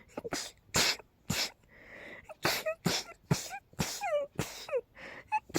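A person sneezing in a rapid run, about ten short, sharp sneezes in quick succession, several ending in a brief high falling squeak, with a quick breath drawn in about two seconds in. The sneezing fit is put down by the sneezer to a cold on top of pollen and dust.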